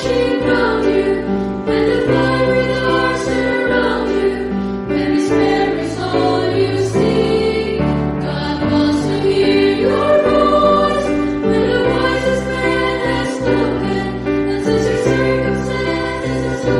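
Christian choral music: a choir singing sustained notes over a steady low backing.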